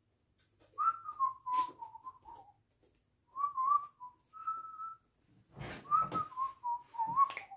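A person whistling a wavering tune in a few short phrases, with soft thumps and rustling about six seconds in as he sits down on an upholstered couch.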